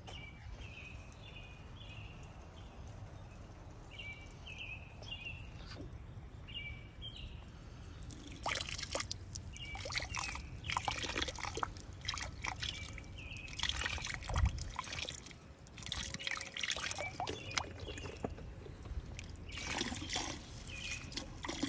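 A stream of water pouring and splashing into a pool skimmer full of leaves and water. It starts about eight seconds in, after a quieter stretch with a few faint chirps.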